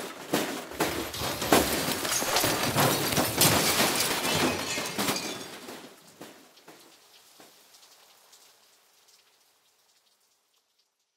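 Crash sound effect of a race car going off the road and tumbling: a dense clatter of impacts and breaking debris that fades away over the second half into silence.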